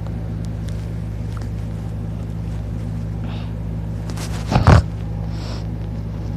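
A sleeping man snoring on his back with his mouth open: one short, loud snort about four and a half seconds in, with fainter breaths around it, over a steady low hum.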